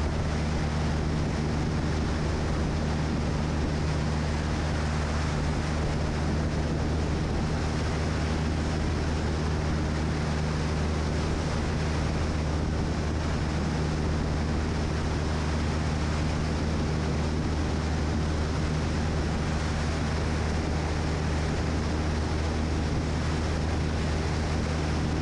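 Single-engine light aircraft in flight: the piston engine and propeller drone steadily at a constant pitch, with a rushing airstream over the under-wing microphone.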